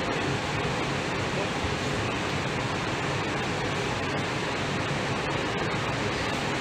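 Steady, even rushing noise inside a monorail car standing at a station platform with its doors open, with no distinct knocks, chimes or voices.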